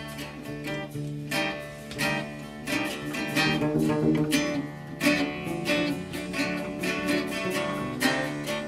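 Acoustic improvised music on plucked strings: a guitarrón picking deep bass notes, with further plucked notes sounding above it.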